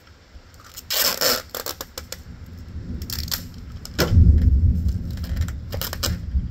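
Clear Scotch tape ripped off the roll about a second in, followed by clicks and scrapes of handling, then a loud low rumble from about four seconds in as the tape is handled and pressed down.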